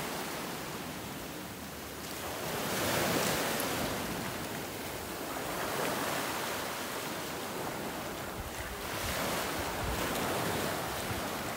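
Sea waves washing against shoreline rocks, the surf noise swelling and easing every three seconds or so, with some wind.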